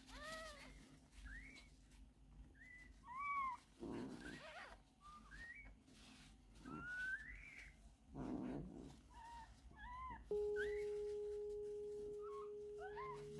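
Newborn kittens mewing in many short, high cries that rise and fall, with a couple of tissue-paper rubbing noises as a kitten is wiped dry. About ten seconds in, a loud steady electronic tone starts and holds.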